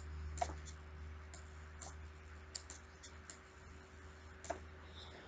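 Faint, irregular clicks and taps of a digital pen writing numbers on a computer screen, about ten in all, over a low steady electrical hum.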